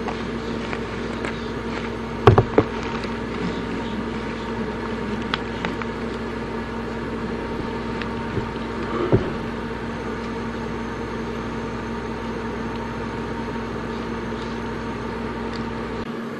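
A steady mechanical hum with a fixed pitch. Over it come a few knocks and thuds from sneakers stepping in a plastic tub smeared with raw egg: a quick pair about two and a half seconds in and another about nine seconds in.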